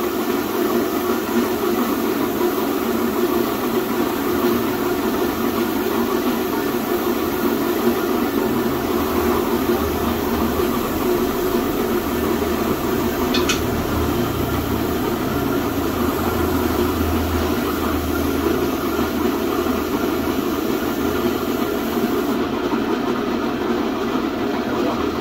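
Air compressor running steadily while a hose-fed spray gun hisses, spraying heat-resistant paint. The high hiss drops away near the end.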